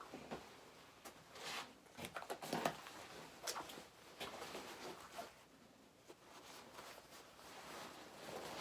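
Faint rustling and knocking handling noises in a small room, irregular and scattered.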